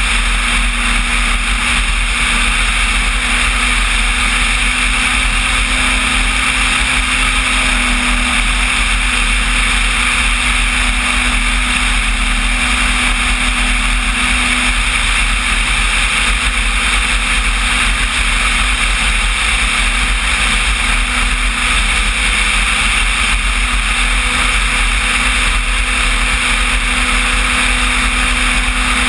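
Electric motor and propeller of a large radio-controlled Cessna 185 float plane in flight, heard from on board: a steady, loud drone with a held tone and a rush of air noise.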